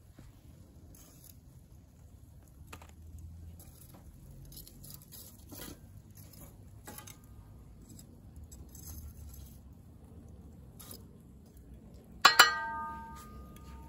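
Metal tongs shifting glowing charcoal briquettes and ogatan binchotan in a Weber kettle grill: light clinks and knocks of the coals. Near the end comes one loud metallic clang that rings on for about a second.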